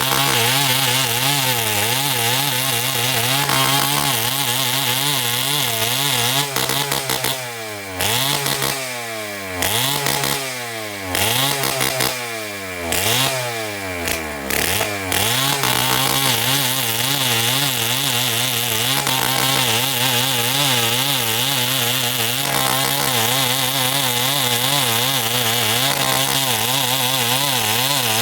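Chainsaw cutting timber at high throttle, its engine note wavering under load. Between about a quarter and halfway through, the throttle is let off and opened again about four times, the pitch falling each time. It then settles back into steady cutting.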